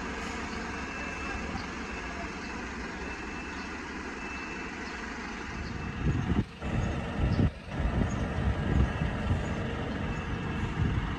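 A UD medium-duty truck's diesel engine runs steadily with faint on-off beeping. From about six seconds in, a louder, uneven low rumble takes over, broken by two short dropouts.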